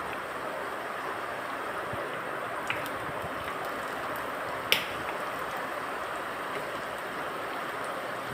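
Spoonfuls of jackfruit-and-rice batter deep-frying in hot sunflower oil in a small kadai: a steady sizzle, with a few light crackles and one sharp pop a little under five seconds in.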